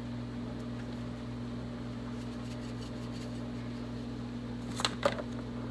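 Steady low electrical hum with a faint whir, as from a kitchen appliance or fan. Two quick clicks come near the end as a plastic spice container is handled.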